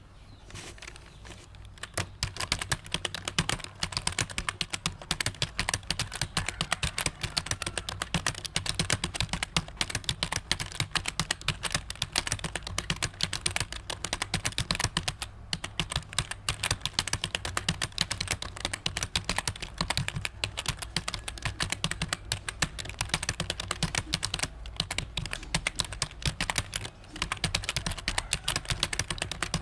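Fast, continuous typing on a computer keyboard, a rapid patter of key clicks starting about two seconds in, with a brief pause about halfway.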